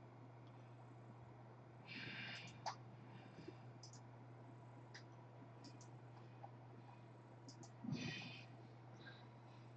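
Near silence over a steady low hum, broken by a few sharp computer mouse clicks and two breathy exhales close to the microphone, about two seconds in and near the end.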